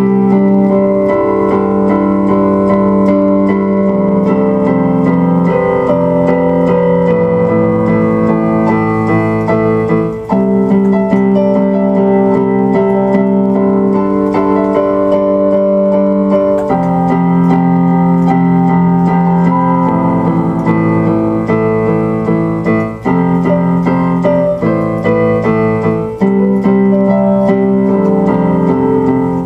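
Background music: electric piano or keyboard playing held chords that change every few seconds.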